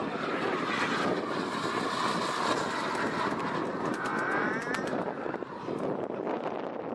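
K-140 turbine of a radio-controlled model jet whining in flight, its pitch bending as the jet passes, easing off a little about five seconds in. Wind noise on the microphone.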